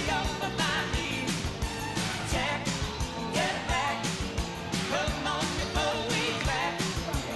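A pop-rock song with a sung vocal line over a steady drum beat.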